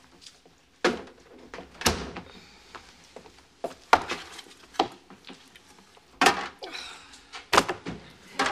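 Kitchen handling noises: a refrigerator door shutting and a raw turkey in its pan being set down on a wooden cutting board, heard as about seven separate knocks and thunks.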